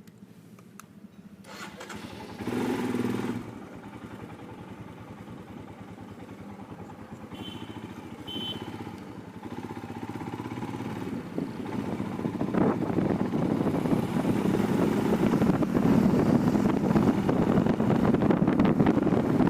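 A motorcycle engine starting about two and a half seconds in, then running, its sound building and getting louder toward the end.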